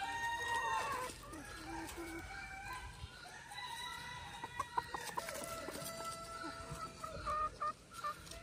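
Ayam Cemani roosters crowing, their long held calls overlapping, with short clucks between them. One crow ends about a second in, and another long crow starts a little past the middle.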